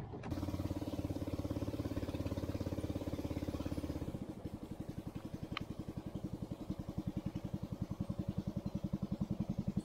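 Small boat's engine running steadily with a fast, even putter as the boat motors along, the beat becoming more distinct and slightly quieter about four seconds in.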